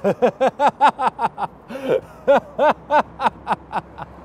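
A man laughing out loud: a long run of quick, even 'ha' sounds, about five a second, broken by a gasping in-breath about two seconds in.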